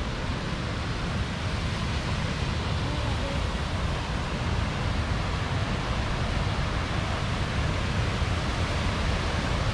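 Waterfall and rapids rushing in a steady wash of white noise, growing slightly louder in the second half.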